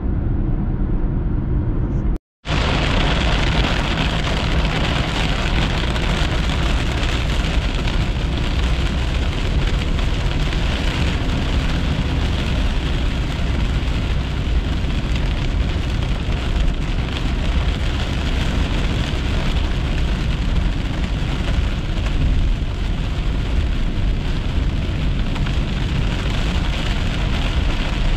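Heavy rain hitting a car's windshield and roof while driving, mixed with tyre noise on the wet road, as a steady loud hiss. It follows a couple of seconds of quieter highway cabin noise and a brief silent break.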